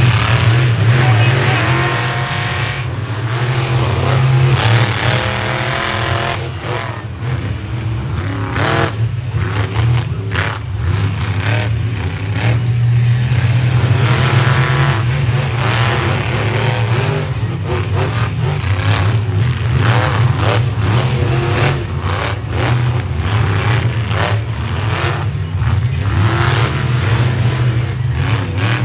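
Monster truck engine revving hard again and again, rising and falling in pitch, with many sharp cracks along the way.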